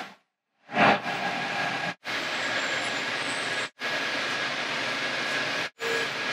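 Steady rushing running noise of a Shinkansen N700-series bullet train at speed, heard in the vestibule by the door, with a faint thin whine in it. A brief louder burst comes about a second in, and the noise drops out for an instant about three times.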